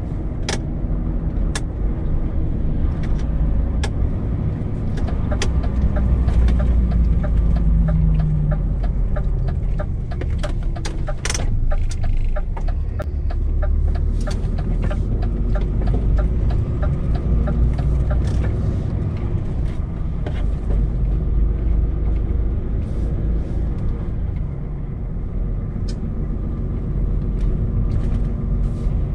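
DAF truck's diesel engine running while the truck drives slowly, heard inside the cab as a steady low rumble, with many short clicks and rattles.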